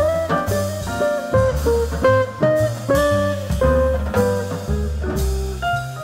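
Jazz quartet music: a guitar picking a melody over upright bass and drums.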